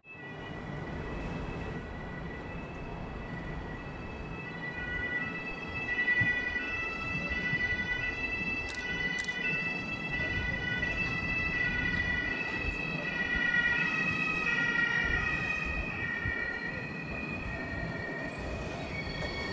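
Electric trains' traction converters whining in several steady, high tones that shift pitch in steps, over a low rumble, as an electric multiple unit pulls slowly into the platform beside another standing electric train. A couple of sharp clicks about nine seconds in.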